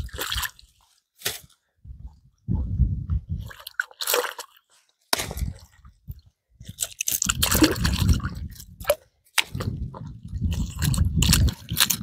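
Shells crunching and scraping with water squishing and dripping as blue mussels and oysters are gathered by hand from shallow seawater. Irregular clusters of crackly clicks alternate with bursts of low rumble on the microphone.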